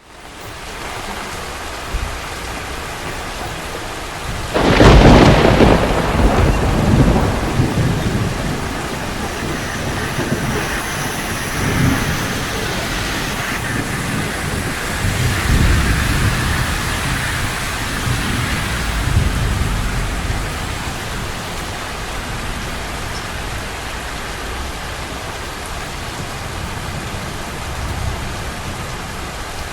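Steady rain hissing on the street. About four and a half seconds in, a loud clap of thunder breaks and rumbles on, slowly fading over the next fifteen seconds.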